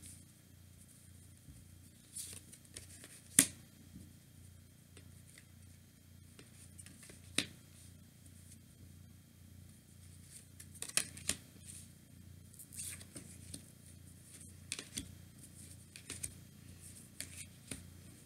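Tarot cards being drawn from a fanned-out deck and laid down on a cloth-covered table: faint scattered slides and taps, with two sharper snaps about three and seven seconds in and a busier run of handling near the end.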